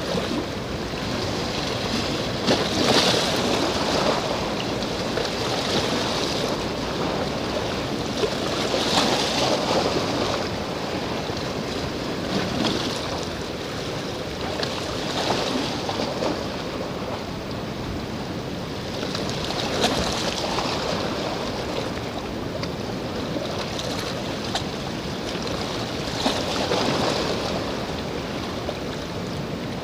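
Sea waves washing against the shore, a steady rushing that surges every few seconds.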